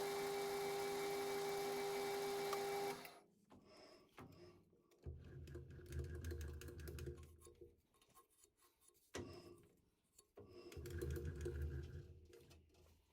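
Metal lathe running with a steady whine, then switched off about three seconds in and spinning down. Quieter clicks and handling noises follow, with two short stretches of low rumbling.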